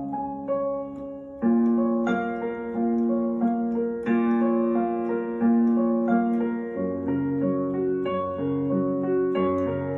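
Piano sound on a keyboard playing C# major progression arpeggios with both hands: broken chords in the right hand over root–fifth–root bass notes in the left. The chord changes about every two and a half seconds.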